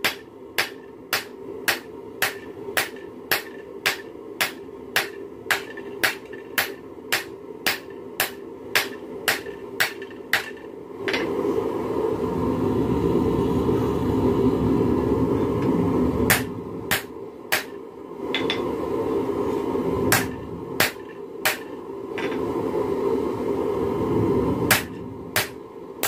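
Hand hammer forging a hot railroad spike on an anvil: sharp metallic blows, about two a second, for some eleven seconds. The hammering then gives way to a steady rushing noise, broken by short runs of a few more blows.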